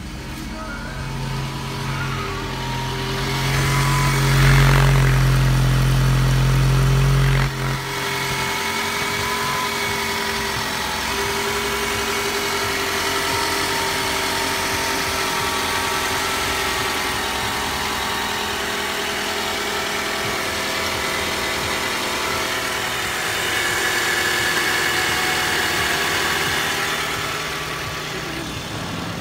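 Toyota 2AZ-FE 2.4-litre four-cylinder engine running at idle, heard from the open engine bay. For the first few seconds a heavier, louder low hum sits on top, and it cuts off suddenly; after that the engine runs on evenly.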